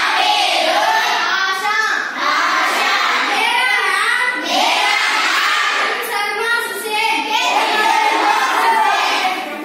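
Children singing a song, in phrases with brief pauses between them.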